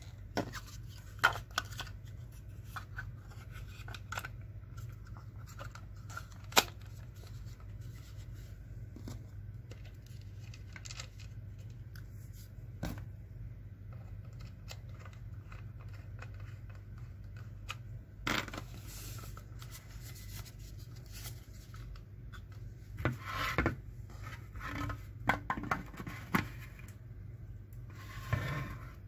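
Unpacking and handling noises: scattered sharp clicks and knocks of plastic parts, with rustling and scraping growing busier in the last several seconds, over a steady low hum.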